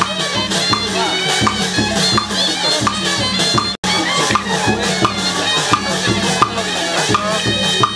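Traditional Burmese ensemble music accompanying a marionette show: a reedy shawm melody wavering high over a steady beat of drums and clappers. The music cuts out for an instant about halfway through.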